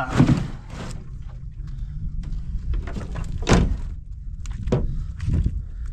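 Several sharp knocks and thunks over a steady low rumble, the loudest knock about three and a half seconds in and a cluster of smaller ones near the end.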